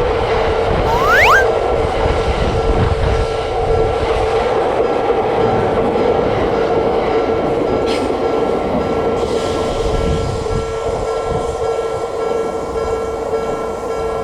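Japanese railroad crossing warning bell ringing steadily as an electric train on the Nambu Line passes, its wheels rumbling over the rails. A short rising whistle-like sound comes about a second in.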